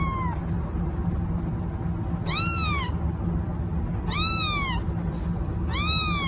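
Kitten meowing: the end of one meow right at the start, then three more high meows about a second and a half apart, each rising then falling in pitch. A steady low hum runs underneath.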